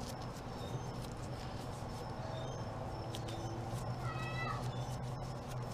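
A steady low hum with scattered light clicks. About four seconds in comes a single short, meow-like animal call lasting about half a second.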